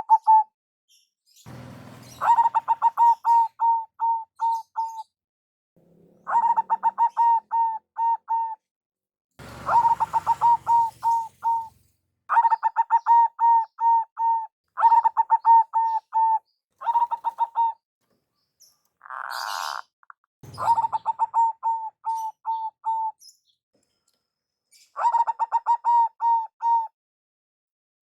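Zebra dove (perkutut) calling in repeated bouts, each a quick string of seven to twelve staccato cooing notes lasting two to three seconds. There is a brief noisy burst about two-thirds of the way through.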